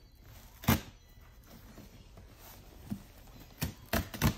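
Hands tapping and handling a cardboard shipping box: a sharp knock under a second in, then three quick knocks close together near the end.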